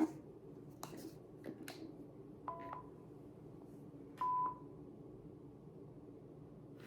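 A few light clicks of buttons or plastic being handled, then two short electronic beeps from a toy's beeper: the first a brief two-tone blip, the second a single steady tone about half a second long and the loudest sound.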